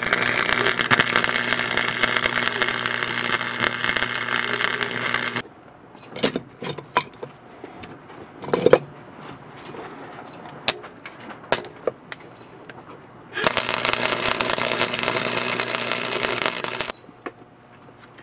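Wire-feed (MIG) welder arc crackling steadily with a hum under it, in two runs: one about five seconds long at the start and a second of about three and a half seconds near the end. Between the runs there are scattered sharp clicks and knocks.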